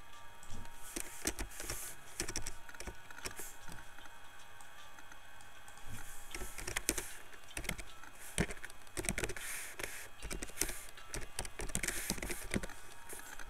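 Typing on a computer keyboard: irregular keystroke clicks in short runs, with pauses between them.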